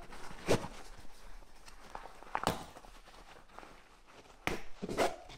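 Straps and plastic buckles of a Drakon 40L roll-top dry bag being handled: a few sharp clicks and knocks, one about half a second in, one midway, and two close together near the end, over faint rustling of the bag's webbing.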